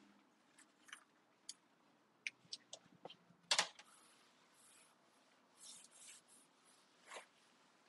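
Quiet kitchen handling sounds from baking work: scattered light clicks and taps, with one sharper click about three and a half seconds in and a few brief soft rustles a little later.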